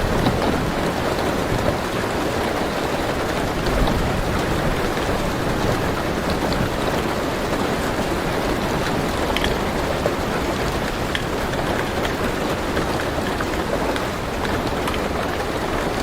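Steady rain on a car roof, heard from inside the car, with individual drops ticking now and then.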